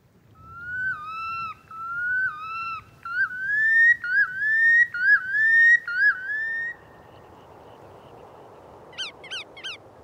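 Male red knot's display song: a series of whistled phrases, each rising then dropping at the end, coming quicker and climbing higher in pitch before stopping. After a pause with a faint steady hiss, a short run of quick, higher notes follows near the end.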